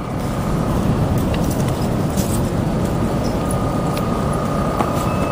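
Steady low rumble of a road vehicle running, with a faint steady whine above it and a few light ticks.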